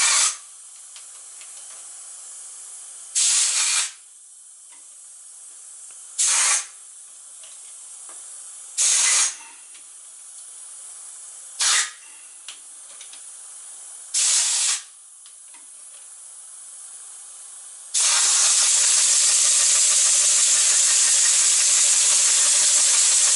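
Model diagonal paddle-steamer engine hissing: six short hisses about every three seconds, then, from about 18 seconds in, a loud continuous hiss as the engine runs and spins the paddle wheels fast. The engine is not yet running right.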